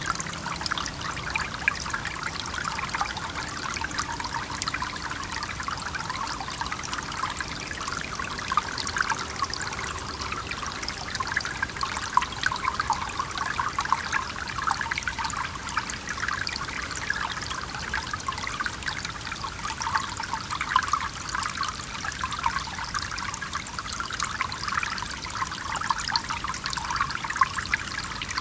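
Small stream trickling and gurgling steadily, a continuous bubbly splashing of running water.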